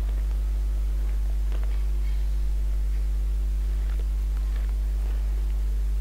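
Steady low electrical mains hum with a stack of even overtones, constant in level throughout, with a few faint clicks.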